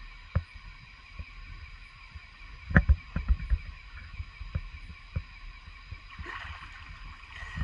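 Water splashing and sloshing in a shallow stream as a snorkelling spearfisher moves through it, with a cluster of dull knocks about three seconds in and a longer run of splashing near the end. A steady high drone runs underneath.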